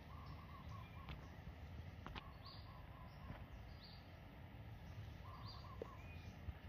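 Faint outdoor quiet with birds calling in the distance, short runs of quick repeated notes heard a few times, and a couple of faint clicks.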